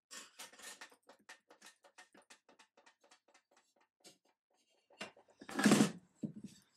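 A quick run of small metallic clicks and scrapes as the cast-iron top of a Boxford lathe tailstock is worked loose from its base. This is followed, about five and a half seconds in, by one loud clunk and a couple of lighter knocks as the heavy casting is set down.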